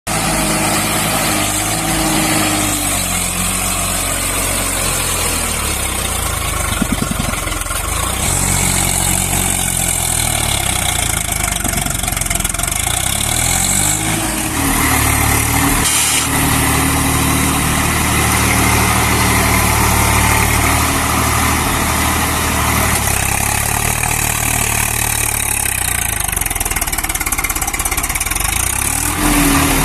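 Tractor diesel engine running under load, its pitch rising and falling a few times as the revs change.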